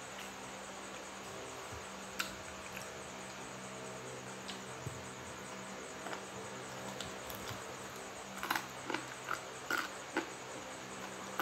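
Close eating sounds of fried chicken eaten by hand: lip smacks and chewing clicks, most of them in a cluster about eight to ten seconds in. Underneath is a steady chirring of crickets and a low, even hum.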